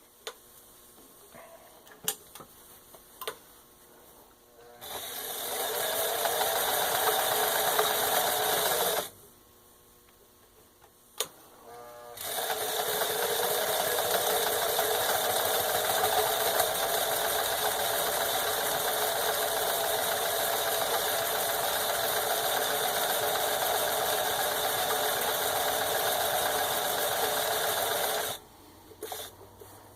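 Necchi 535FA zigzag sewing machine stitching a built-in decorative pattern. It runs in two spells: a short one starting about five seconds in, then after a pause a long steady run that stops near the end. A few light clicks come in the gaps.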